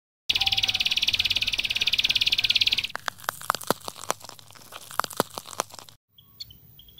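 Logo sound effect of electric buzzing and crackling: a rapid high buzz for nearly three seconds, then scattered sharp cracks for about three more. After it cuts out, faint high peeps follow.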